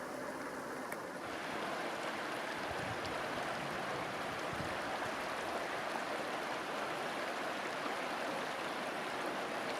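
Steady rushing of running water, even and unbroken, with one or two faint clicks.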